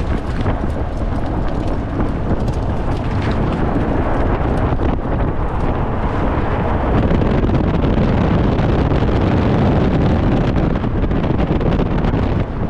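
Heavy wind rush buffeting a microphone mounted outside the driver's door of a Tesla electric car at speed, mixed with tyre and road noise and many short ticks. There is no engine note.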